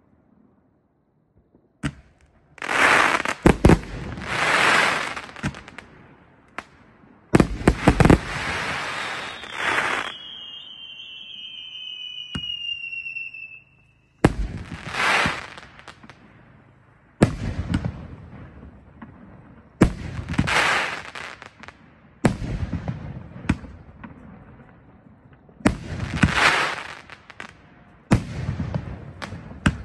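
Firework cake firing: after a brief silence, a run of loud volleys of shots and bursts, each starting suddenly and trailing off over a second or two, with short gaps between them. A falling whistle sounds about ten seconds in.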